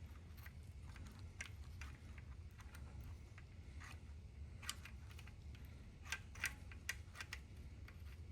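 Light, irregular clicks and taps of small engine parts and tools being handled while the shift linkage is taken apart, with a cluster of clicks about six to seven seconds in, over a faint low hum.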